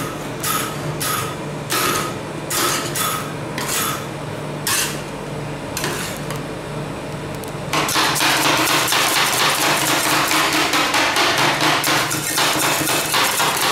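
Metal spatulas striking a rolled-ice-cream cold plate as they chop through the cream base. Spaced taps come one or two a second with a short metallic ring, then about eight seconds in it turns into a louder, rapid clatter of fast chopping.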